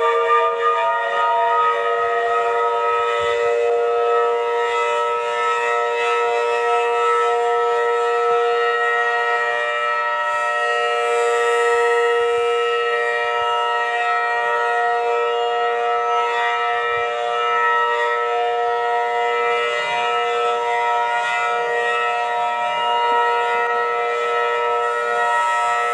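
Federal Signal outdoor warning siren sounding a steady wail made of several tones at once. It finishes winding up in pitch in the first couple of seconds, then holds its pitch, swelling and fading slightly now and then.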